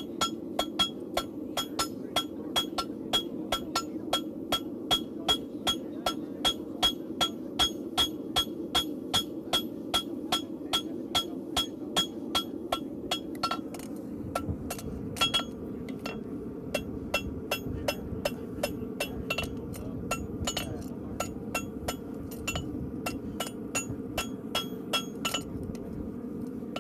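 Farrier's hammer striking a steel horseshoe on an anvil in a steady rhythm, about three ringing blows a second, while the shoe is shaped and set. About halfway through, the blows turn lighter and less regular, over a steady low rushing noise.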